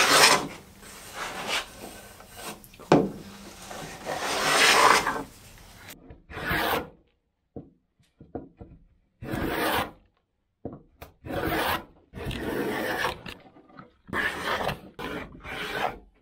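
Restored wooden fillister plane cutting a rebate along the edge of a board: a series of planing strokes, each the hiss of the blade peeling off a long shaving. The first strokes are long; from about six seconds in they come as short separate strokes with silence between them.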